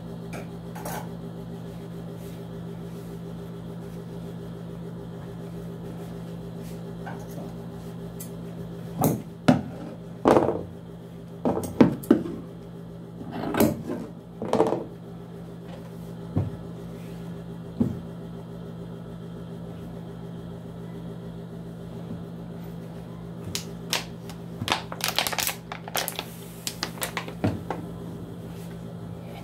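A steady electrical hum, with handling noises on a wooden work table: a run of knocks and rustles about nine to fifteen seconds in, and another near the end as cloth and an electric iron are set down on the board.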